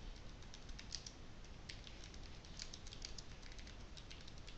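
Faint typing on a computer keyboard: a quick, irregular run of light key clicks as text is entered.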